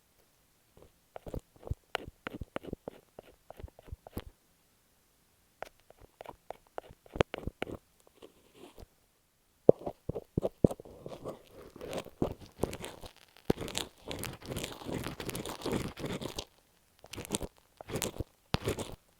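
Masking tape stuck on an earphone microphone, handled right at the mic: runs of quick, crackly taps and scratches. About ten seconds in it turns to a denser, continuous scratching rub, and short clicks return near the end.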